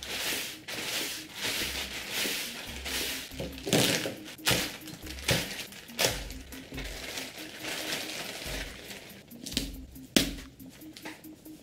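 Thin black plastic bag crinkling and rustling as hands unwrap a parcel, with sharp crackles here and there. Near the end the rustling turns softer as foam wrap is handled. Faint background music with a low repeating bass runs underneath.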